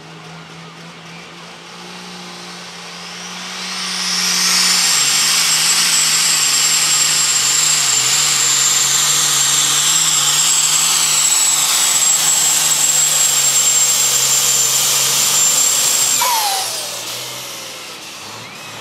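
Turbocharged diesel engine of a Super Stock/Pro Stock pulling tractor, running low for a few seconds, then opening up to full throttle about four seconds in and pulling the sled flat out for about twelve seconds with a steady high turbo whine. Near the end the throttle is cut, the engine drops back and the whine falls away.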